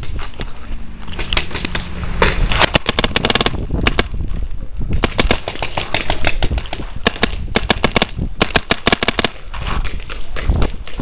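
Paintball markers firing in three rapid strings of shots, several pops a second, over low wind and handling rumble on the microphone.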